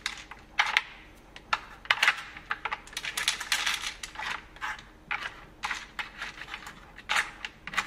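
Dry pet kibble clattering as it is dropped by hand into the compartments of a plastic puzzle slow feeder, with irregular clicks of pellets and plastic pieces.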